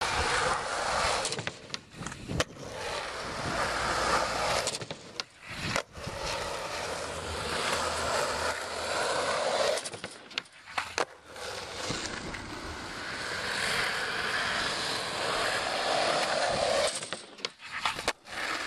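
Skateboard wheels rolling on an asphalt path, broken by several sharp clacks of the board landing on the pavement and on a plywood kicker ramp.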